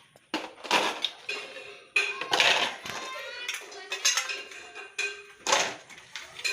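Plastic bottle halves holding ice knocking and clinking as they are handled and tied onto a table fan, with a few sharp, loud knocks.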